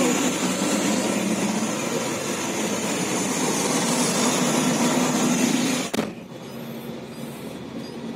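Truck engine droning inside the cab under a loud, steady rushing noise. About six seconds in the rush cuts off abruptly, leaving a much quieter engine hum.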